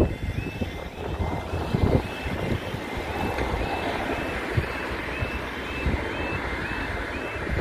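Level crossing audible alarm sounding its repeating rising two-note warble, the warning that a train is approaching and the barriers are about to lower, over a low rumbling noise that swells around two seconds in.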